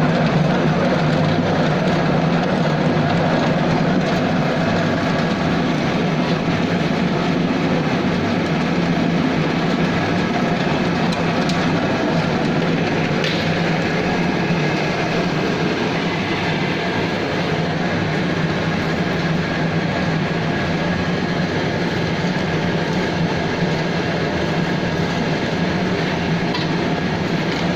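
Wood sawdust pellet machine running steadily: a loud, continuous mechanical drone with a strong low hum.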